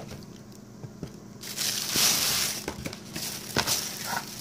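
Thin plastic grocery bags rustling and crinkling as produce is pulled out of them, starting about a second and a half in and coming again near the end, with a few light knocks.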